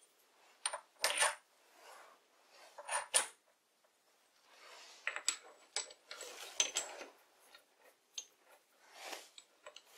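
Steel lathe tooling being handled: a series of sharp metallic clinks and taps, several with a short ring, with scraping between them, as centers are fitted into the tailstock quill and the chuck.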